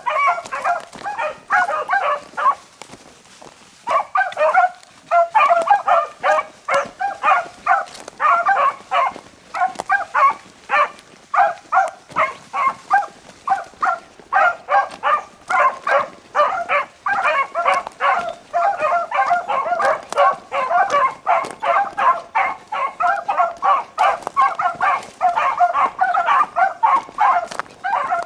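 A pack of beagles baying in a fast, steady string of short barks as they run a rabbit by scent. A brief lull comes a few seconds in, then the baying picks up again and carries on.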